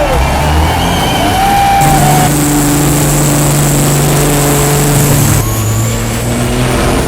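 Heavy diesel truck engine running loud under load, with whistling glides in the first two seconds and a steady high whine for a few seconds after.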